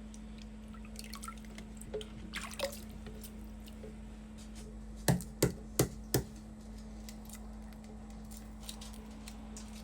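Hard-boiled egg being cracked and peeled: faint crackling of shell, then four sharp taps in quick succession about five seconds in.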